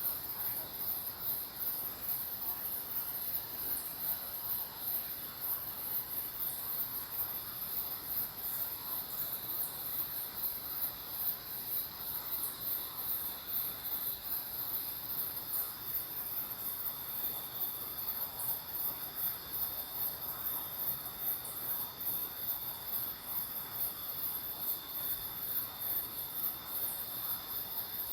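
Night insect chorus: a dense, very high-pitched pulsing chirr, with a steadier high whine underneath.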